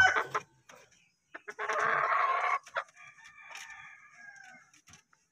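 Rooster crowing: a loud, rough crow about a second long, followed by a fainter, longer crow whose pitch falls slightly.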